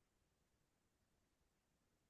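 Near silence: faint, even room tone.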